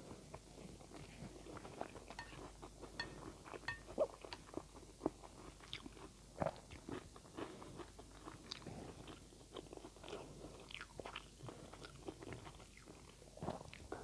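Close-up mouth sounds of a person eating instant noodles: chewing and slurping, with many short, irregular clicks and smacks.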